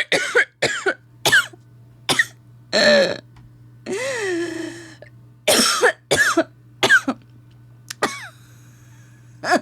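A person laughing hard in a run of short, breathy, cough-like bursts with squeaky rising and falling pitch, about a dozen in all.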